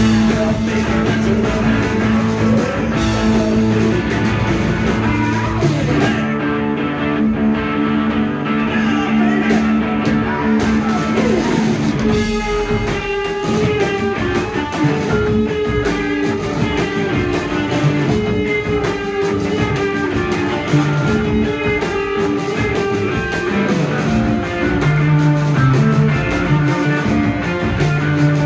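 Live punk-blues band playing loud: two electric guitars and a drum kit with no bass, heard from the crowd in a small club. The cymbals drop away for a few seconds about six seconds in, and sliding guitar notes come in near the middle.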